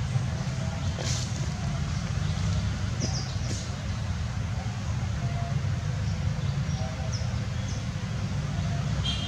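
Steady low outdoor rumble with a few faint, short high chirps and clicks over it.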